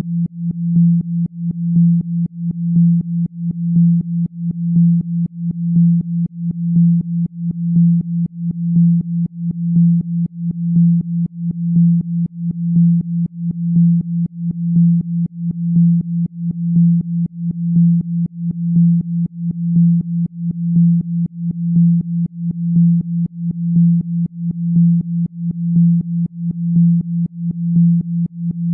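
A synthesized low pure tone, a Rife-frequency track played for sound healing, held steady in pitch and pulsing in loudness about once a second.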